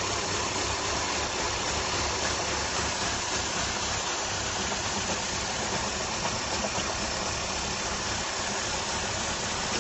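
BMW engine idling steadily with a hissy mechanical noise, a strange sound that the owner suspects comes from the flywheel or the timing chain.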